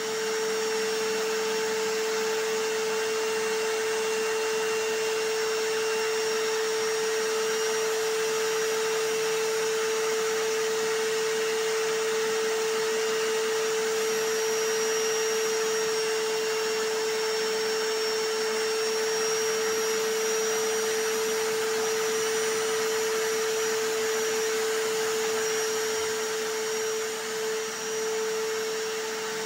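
A vacuum cleaner and a hammer drill running together as one continuous white-noise drone, with a strong steady hum under a hiss. The level dips briefly a couple of seconds before the end.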